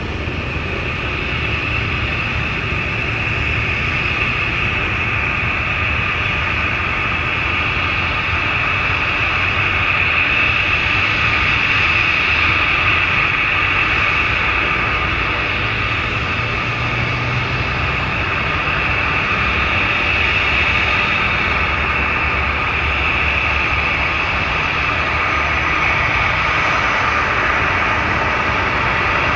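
Jet airliner engines running at high power: a loud, steady roar with a high whine over it, swelling a little in the first several seconds.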